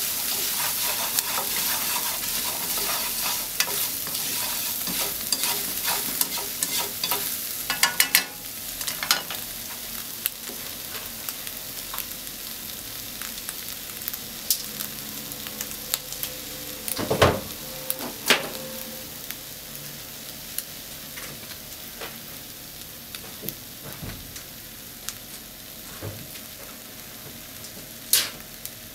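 Egg and ham sizzling in a frying pan. For the first several seconds they are stirred with chopsticks that click and scrape against the pan. After that the sizzle goes on more quietly, broken by a few sharp knocks.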